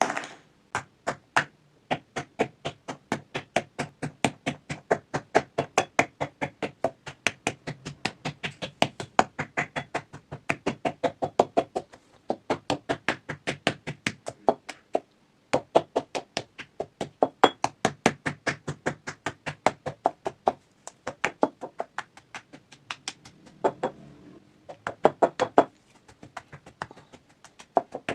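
Soap being crushed and broken: a long run of sharp, crisp cracks, about four a second, with a few short pauses.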